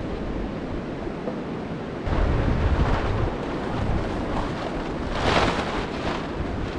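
Wind buffeting the microphone outdoors, with a stronger gust rumbling about two seconds in and a brief rustle about five seconds in.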